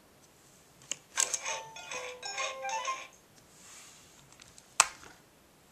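Fisher-Price Laugh & Learn tool bag toy playing a short electronic jingle of stepped beeping notes for about two seconds, just after a plastic click about a second in. A single sharp plastic click comes near the end.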